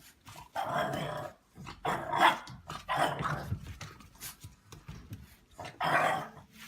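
A dog giving a series of about four rough, growly barks.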